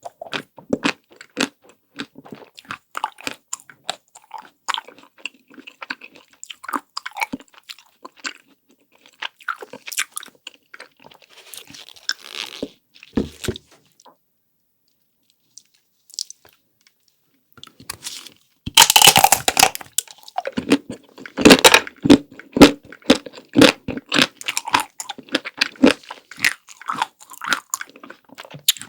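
Close-miked eating of chocolate-coated ice cream, with crisp crunches and chewing clicks. After a pause of a few seconds, a loud crackling bite comes about two-thirds of the way through, followed by louder, quicker crunchy chewing.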